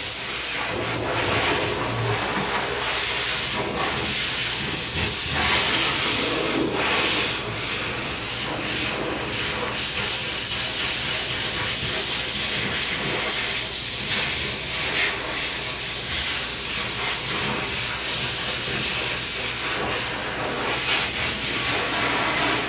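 Steady hiss of rushing air with a faint high whine running under it.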